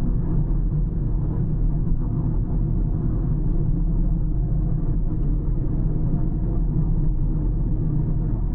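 A car driving at a steady pace: an even, low rumble of road and tyre noise with the engine underneath, without changes.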